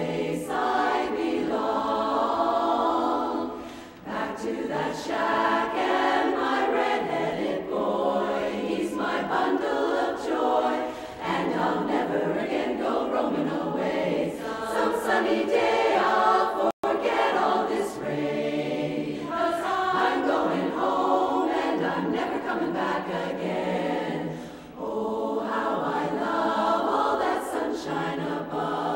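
Women's chorus singing a cappella in harmony, in phrases with short breaks between them. The sound cuts out completely for an instant a little over halfway through.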